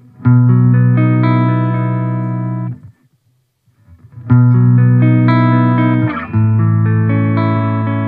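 Squier Affinity Jazzmaster electric guitar played through a Fender combo amp: a chord is strummed and left to ring for about two and a half seconds, then muted. After a short silence two more chords are struck, each left ringing.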